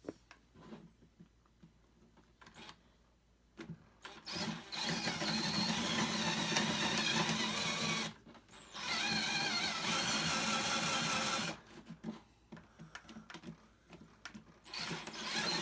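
Power drill running under load, boring a hole in wood a bit size larger: a steady motor whine in three runs, starting about four seconds in, pausing briefly near eight seconds, stopping near twelve and starting again near the end, with handling knocks between.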